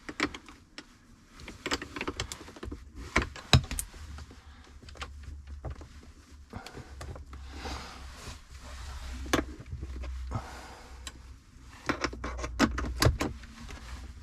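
Spanner clinking and clicking against a leisure battery's terminal nut and clamp as the terminal is undone, with scattered sharp metallic knocks.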